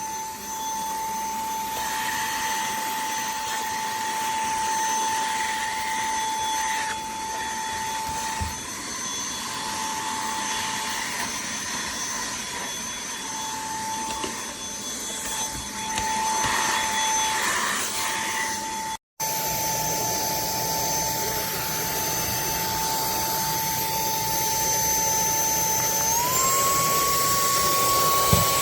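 Cordless handheld vacuum running with a steady high-pitched motor whine over the rush of air; the sound cuts out for an instant about two-thirds of the way through, and near the end the whine steps up in pitch.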